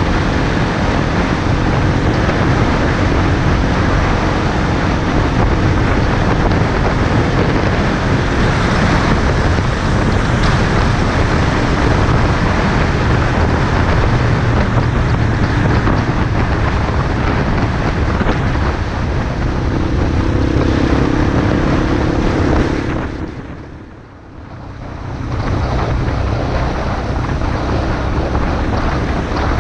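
Heavy wind rush over the camera microphone on a riding Honda XR250 motard, with the bike's single-cylinder four-stroke engine running steadily underneath. The sound fades down briefly about three quarters of the way through, then comes back.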